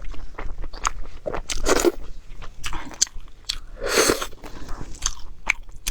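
Close-miked eating: biting and chewing with crunches and many small sharp mouth clicks, two louder bites at about two and four seconds in.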